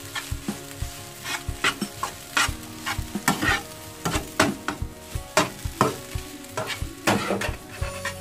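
Metal spatula scraping and knocking against a frying pan as fried rice is stir-fried, in irregular strokes about two a second, over a low sizzle of the rice frying.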